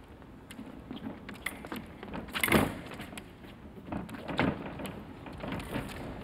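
Foil fencing footwork on a piste: short knocks and scuffs of feet stepping and sliding, with clicks of blades meeting. The two hardest knocks come about two and a half and four and a half seconds in.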